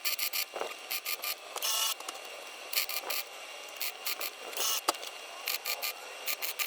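Small hobby welder laying short stitch welds on thin sheet metal: crackling bursts a fraction of a second long, starting and stopping irregularly, as rust holes around a patch panel are filled in little by little.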